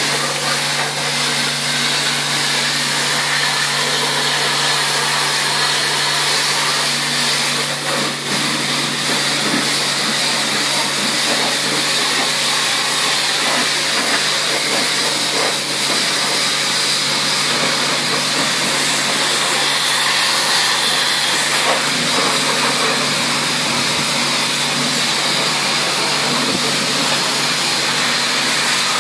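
High-pressure car-wash lance spraying water onto a car: a loud, steady hiss with a steady low hum underneath.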